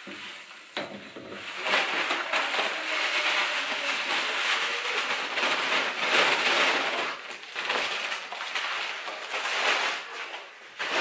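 Malt grain pouring from a cloth sack into a pot of hot mash water while a wooden paddle stirs it: a steady rustling hiss that swells and falls, dying away about ten seconds in.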